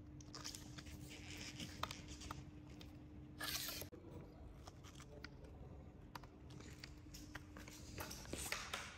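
Handling sounds from unpacking and setting up an e-scooter: scattered light clicks and knocks, with a short rustling tear about three and a half seconds in. A faint steady hum runs underneath and stops about eight seconds in.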